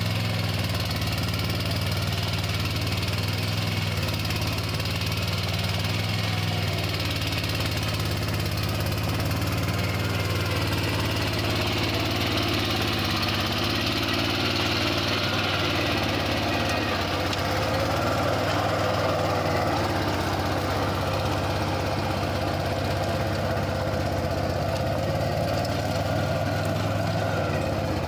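Swaraj Code mini tractor's single-cylinder diesel engine running at a steady speed while its rear rotary tiller works the soil, with a constant even drone and no change in pitch.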